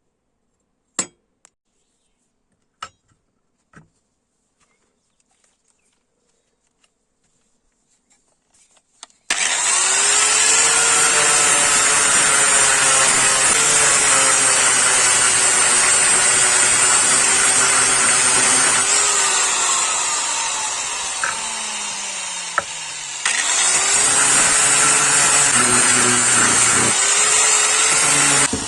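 A few sharp clicks, then an electric power tool switched on about nine seconds in, loudly grinding the steel of a chainsaw bar with a harsh hiss over the motor's whine. Around twenty seconds in the motor winds down, and a few seconds later it spins up again and grinds on.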